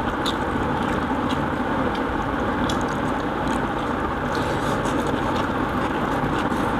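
People eating rice and curry with their hands, with faint clicks of fingers working food on plates and chewing, over a loud steady background rush.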